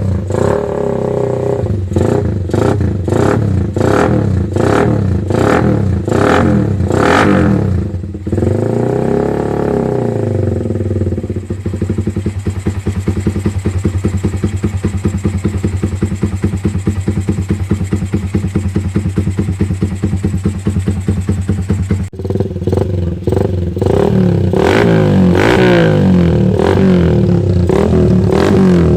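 Suzuki Raider R150 single-cylinder four-stroke engine running through an aftermarket open exhaust pipe. The throttle is blipped in quick repeated revs, then one longer rev falls back to a steady idle. After a sudden break about 22 seconds in, the quick revs start again.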